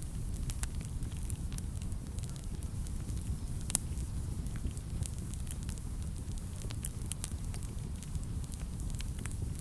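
Wood fire burning in a fireplace: a steady low rumble of flame with frequent irregular crackles and pops, one sharper pop about four seconds in.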